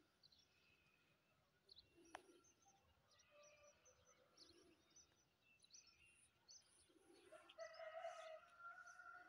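Faint dawn chorus of small birds chirping, with a rooster crowing in the last couple of seconds.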